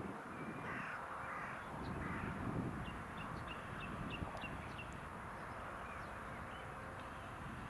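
Crows cawing: three harsh arching calls in the first two seconds, then a quick run of short, higher calls in the middle, over a steady low rumble.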